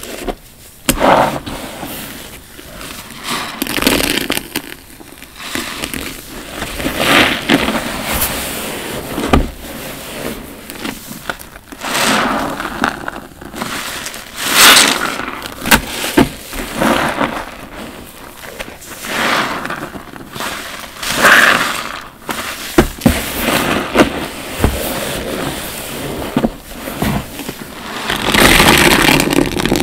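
Soapy bath sponges squeezed again and again by rubber-gloved hands: wet squelching with crackling, popping foam, in uneven swells every second or two.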